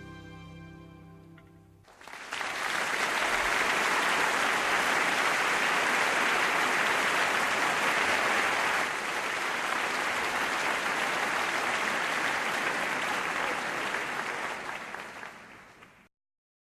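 Jazz music fades out, and about two seconds in an audience breaks into steady applause that tapers off near the end and then cuts to silence.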